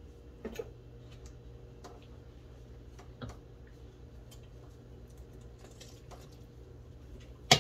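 A few light, scattered clicks and taps of a spoon against a pot as the thickened soup is stirred, over a steady low hum, with a louder clack near the end.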